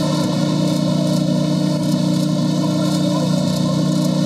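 Steady din of a busy exhibition hall: an even low drone with faint scattered clicks.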